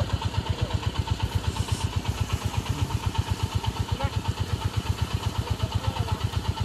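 An engine running at idle with a steady, fast, even thumping beat.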